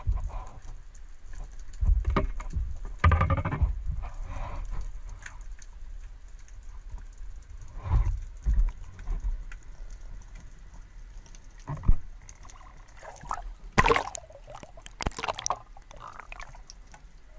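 Muffled underwater sounds from a spearfisher's camera: a low rumble with scattered knocks and gurgling, bubbly bursts as the speargun is handled and the diver swims, two of the loudest bursts near the end.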